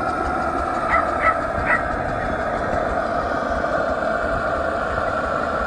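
Steady machinery noise at an engine display. About a second in, three short high sounds cut through it.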